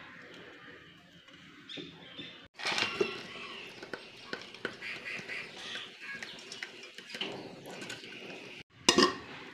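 Cooked rice being stirred in a pressure cooker pot with a spoon, then tipped and scraped out into another pot: soft scraping and light metal taps.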